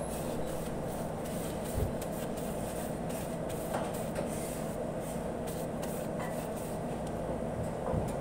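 Steady mechanical drone of commercial kitchen machinery, with a few faint clicks.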